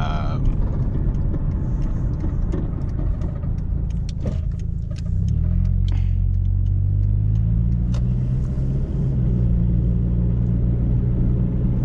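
Vehicle engine and road rumble from inside the cabin. The engine note climbs about five seconds in as the vehicle speeds up, then holds steady. Light clicks and rattles are scattered through the first half.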